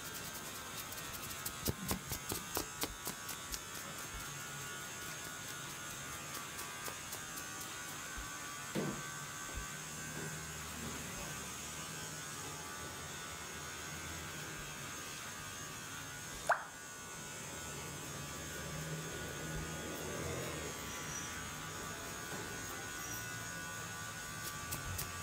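Barber's fingers rubbing and tugging through short hair during a head massage: close rustling and scratching over a steady hum, with a run of quick, regular rubbing strokes near the start. About two-thirds through comes one short, rising squeak.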